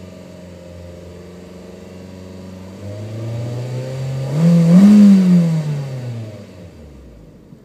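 2007 Hyundai Tiburon GS's 2.0-litre DOHC four-cylinder engine held at a steady raised speed near 3,000 rpm, then revved harder about three seconds in, its pitch climbing to a peak around the middle and falling back toward idle as the throttle is released. The exhaust note is throaty.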